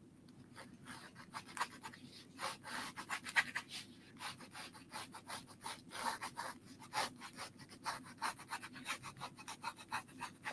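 Pens scratching and rubbing on paper in quick, uneven strokes as two people draw.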